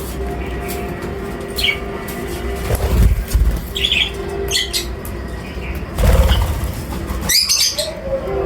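Birds chirping in short high calls, with two loud bursts of wing flapping about three and six seconds in, over a steady low hum.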